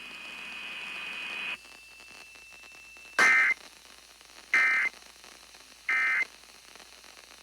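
Radio hiss, then three short identical bursts of rapid two-tone data warble, about a second and a half apart: the Emergency Alert System's SAME end-of-message code closing a broadcast weather warning.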